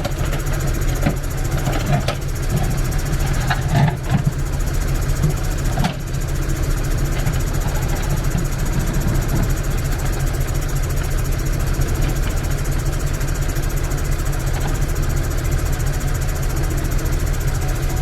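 A heavy machine's engine running steadily, with a few knocks and clatter in the first six seconds.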